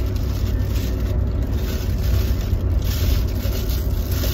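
Steady low rumble in a car's cabin, with rubbing and rustling noise over it.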